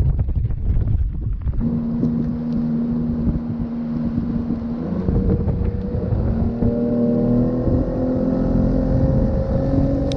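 Outboard motor running under throttle as the boat gets underway. Its note comes up about a second and a half in, steps up in pitch twice and keeps climbing slowly. Wind buffets the microphone, heaviest in the first second or so.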